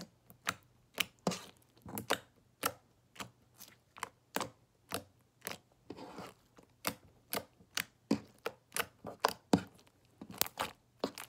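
Glossy white glue-and-borax slime squished and stretched by hand, giving a string of sharp wet pops and clicks about twice a second.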